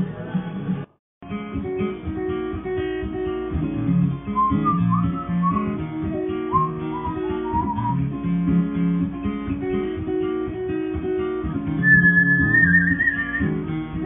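A guitar-led song plays after a brief break about a second in. An African grey parrot whistles along over it in short, wavering whistled phrases, a few around the middle and a longer, higher one near the end.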